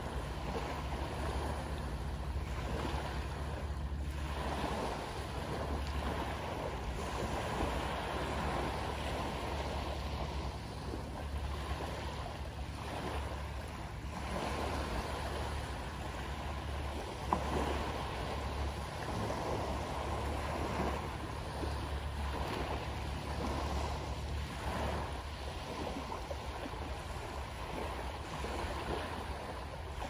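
Small waves breaking and washing up a pebbly sand beach, swelling and ebbing in slow surges, over a steady low drone from a boat engine out of sight. A single brief click sounds a little past halfway.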